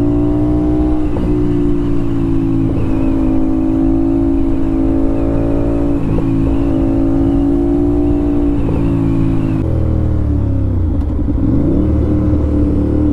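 Aprilia RS 457's parallel-twin engine through an SC Project exhaust, pulling at a steady pitch while riding. About ten seconds in the revs drop, dip briefly and pick back up.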